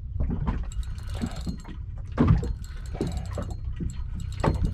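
Spinning reel being wound against a fish on the line, with scattered short knocks and clicks, the strongest about two seconds in, over a steady low rumble of wind and water on an open boat.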